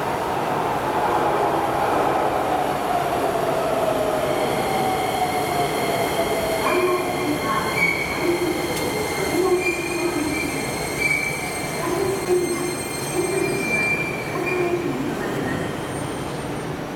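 Keisei 3000-series electric train arriving in an underground station. Its motor whine falls in pitch as it slows, then squeals come in short repeated bouts at a high and a lower pitch as it brakes along the curve and stops, echoing off the tunnel walls.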